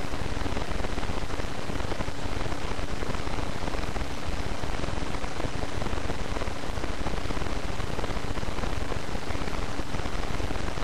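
Steady, even hiss-like noise with a faint low hum.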